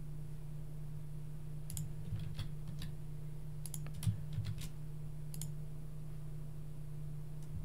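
A handful of sharp computer mouse and keyboard clicks, bunched between about two and five and a half seconds in, over a steady low hum.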